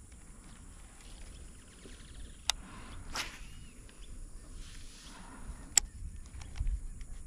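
Baitcasting rod and reel handled from a kayak: two sharp clicks about three seconds apart, with a brief swish between them. A low wind rumble runs underneath.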